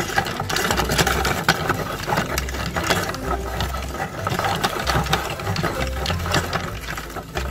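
Electric meat grinder running, its auger turning and churning sugar-coated gummy candy strands, with a steady motor hum under a dense, irregular clatter of clicks.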